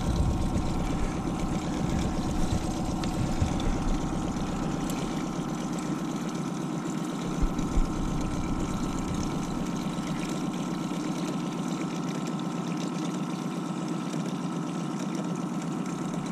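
Honda outboard motor running steadily at low speed, an even drone with a constant hum. Two brief knocks sound a little past halfway.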